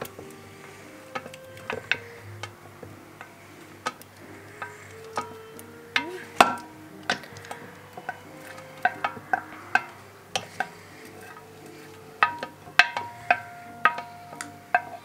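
A wooden spoon knocking and scraping against a stainless steel stand-mixer bowl as freshly churned butter is scooped out: many sharp, irregular clicks and knocks, the loudest about six seconds in and a cluster near the end. Light background music with held melodic notes plays underneath.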